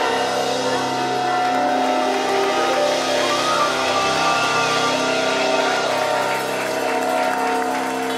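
Live rock band playing the song's instrumental ending, with long held chords from keyboards and guitar ringing through.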